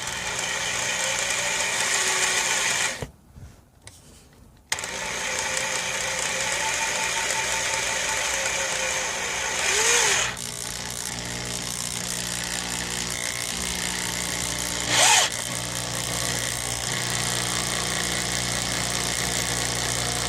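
Electric drill with a paddle bit running steadily as it bores into tough plastic. It stops briefly about three seconds in, then starts again, with two short louder surges later.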